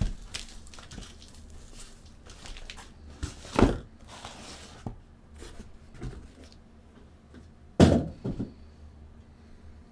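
Cardboard hobby boxes being handled and set down on a table: light shuffling with two dull thunks, the louder one about eight seconds in followed by a smaller knock.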